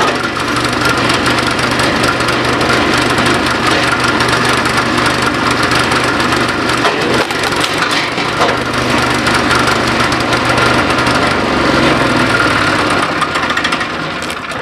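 Small gasoline engine of a rapid-fire wood splitter running steadily while logs are split, with the cracking of splitting wood mixed in; the engine dies down near the end.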